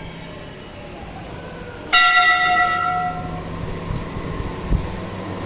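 A temple bell struck once about two seconds in, ringing out with several clear tones that fade over about a second and a half. A dull thump follows near the end.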